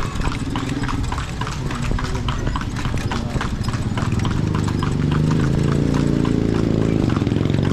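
Hooves of the horse pulling a kalesa clip-clopping steadily on the street. About four seconds in, a steady low hum joins beneath the hoofbeats and grows louder.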